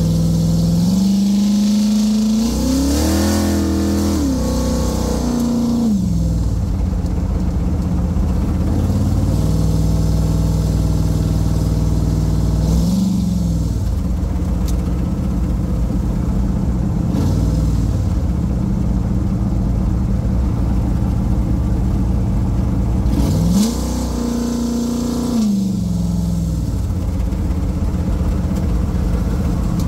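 Car engine heard from inside the cabin while driving, running steadily with its pitch rising under acceleration and dropping back a few seconds in, briefly twice mid-way, and again near the end.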